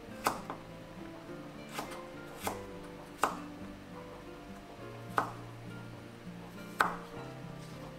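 Kitchen knife striking a wooden cutting board, six separate chops at an unhurried, uneven pace, over soft background music.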